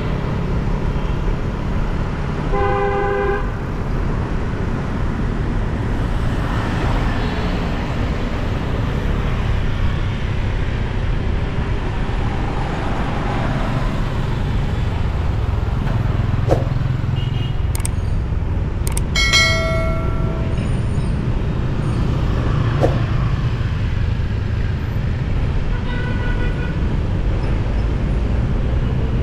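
Steady rumble of a motorcycle ride through busy city traffic, engine, road and wind noise together, with vehicle horns beeping: once about three seconds in, again around twenty seconds in, and faintly near the end.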